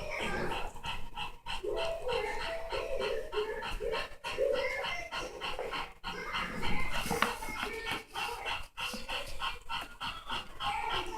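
European basset hound puppies and an adult basset playing, with short high yips and whines clustered in the first few seconds and dog panting.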